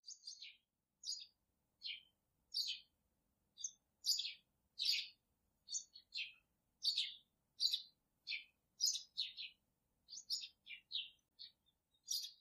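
A small bird chirping over and over: short, high chirps that slide downward in pitch, about two a second.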